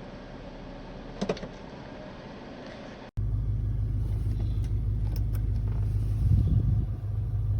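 A vehicle running: a steady low hum with a short click about a second in, then, after an abrupt cut about three seconds in, a much louder, deep steady rumble that swells briefly near the end.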